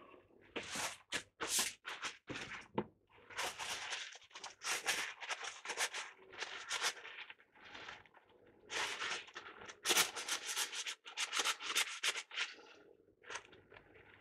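Irregular scraping and rubbing strokes from handling and scraping at an old, corroded capacitor: a few short strokes at first, then longer runs of them.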